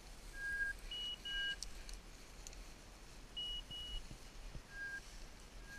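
Electronic beeper sounding short, clear beeps at two pitches, a lower and a higher one, in small groups every second or two, over faint footfalls in dry grass.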